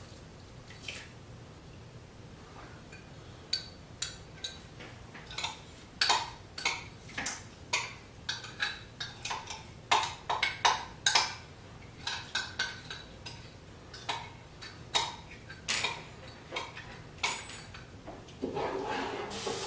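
Metal spoon clinking against a saucepan as Epsom salt is stirred into boiling water: a few scattered clinks at first, then a quick, irregular run of light clinks.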